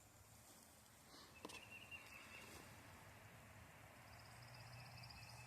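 Near silence: faint outdoor ambience with a faint click about one and a half seconds in, then faint high chirping, and a short high rattling trill near the end, from birds or insects.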